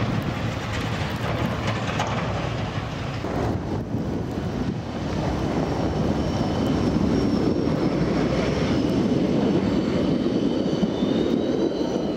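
Škoda ForCity Smart Artic tram approaching and passing close by, a steady rumble that grows louder from about halfway, with a faint high whine that rises near the end.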